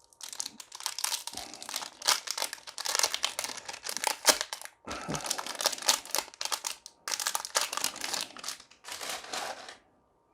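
Plastic wrapper of a Magic: The Gathering collector booster pack crinkling and tearing as it is opened by hand, in several bursts with short pauses, stopping shortly before the end.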